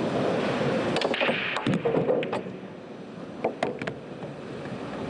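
Sharp clicks of pool balls and cue striking, several in quick succession and a few more shortly after, over low steady background noise.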